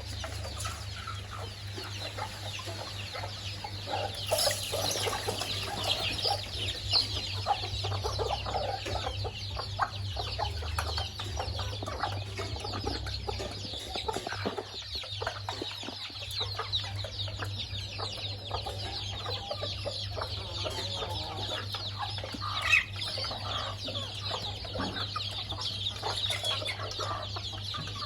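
Flock of chickens clucking and calling continually while feeding, many short calls overlapping, over a steady low hum.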